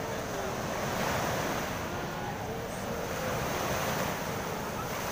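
Ocean surf breaking offshore and waves washing up a sandy beach, a steady rush.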